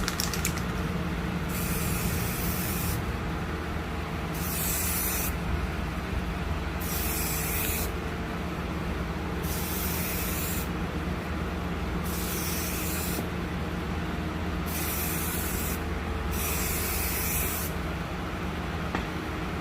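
Spray hissing in seven bursts of about a second each, roughly every two to three seconds, over a steady low hum.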